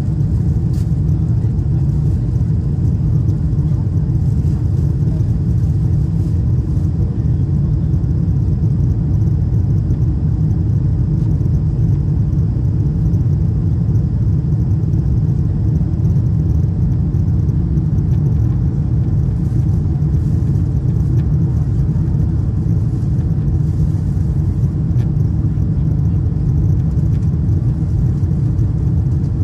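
Steady low rumble of engine and airflow noise heard inside the cabin of a Boeing 747-8 Intercontinental airliner in motion, unchanging throughout.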